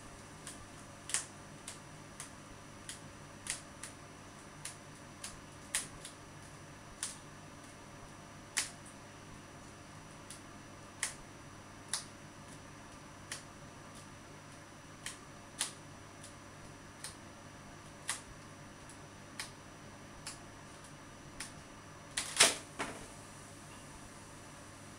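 Irregular sharp clicks, roughly one every second or two, over a faint steady hum, with one louder, longer crackle about 22 seconds in.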